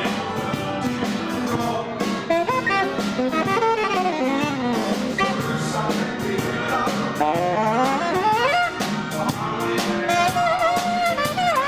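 A band playing jazzy music, with a saxophone carrying a melody full of swoops and slides up and down.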